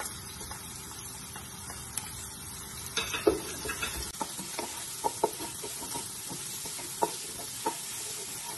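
Chopped onion and garlic sizzling in hot oil in a pot, stirred with a wooden spoon. The spoon starts knocking against the pot about three seconds in and keeps tapping every second or so.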